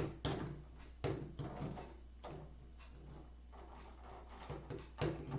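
A plastic Stridor toy horse being handled and moved. There are a few sharp plastic clicks and knocks: one at the start, one about a second in, and two close together near the end, with faint handling noise between.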